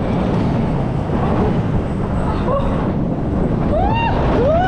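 Intamin spinning roller coaster in motion: a steady loud rumble of the train's wheels on the track mixed with rushing wind. Near the end riders let out two rising-and-falling shouts.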